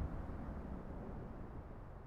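Low rumble of an airplane flying over, steadily fading away as it recedes.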